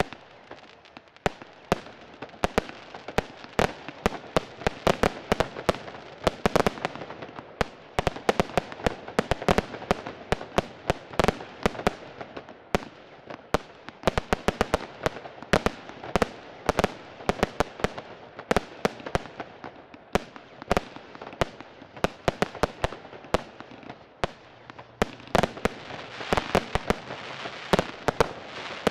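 Fireworks display: a dense, irregular run of sharp bangs from bursting shells, often several a second, over a constant noisy rush. The bangs start about a second in and continue without a break.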